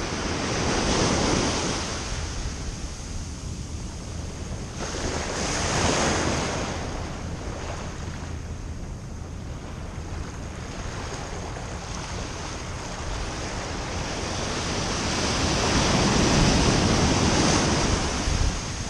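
Ocean surf breaking and washing up the beach: three swelling rushes of water, near the start, about a third of the way in, and a longer one near the end, over a steady low rumble of wind on the microphone.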